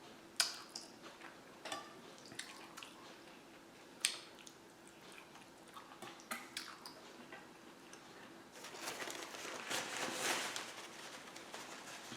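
Close-miked eating of pasta and shrimp in sauce: a few sharp clicks of cutlery against a dish, with chewing that gets louder in the last few seconds.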